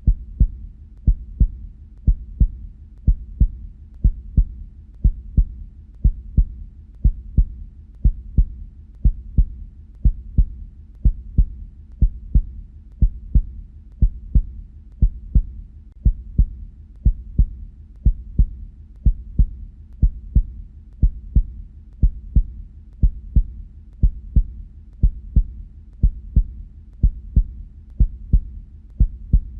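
Heartbeat: the steady double 'lub-dub' knock of the heart valves closing, about one beat a second.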